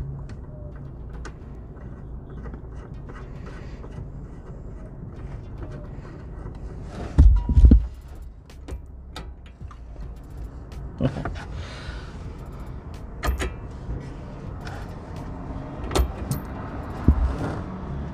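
Sway bar end link and its nut being handled and threaded on by hand: scattered light metallic clicks and knocks over a steady low hum, with a louder cluster of knocks about seven seconds in.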